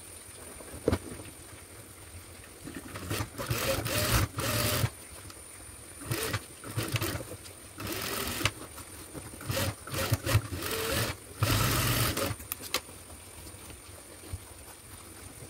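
Sewing machine stitching in several short runs of about a second each, with pauses between, as gold cord trim is sewn onto fabric. A single sharp click about a second in.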